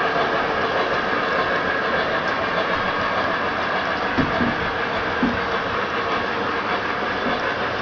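O-gauge model freight cars rolling past on curved three-rail track: a steady rumble of metal wheels on rail, with two short knocks about halfway through.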